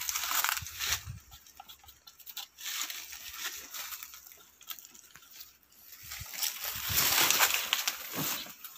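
Irregular rustling and scuffing from close handling, with no steady tone, loudest near the end.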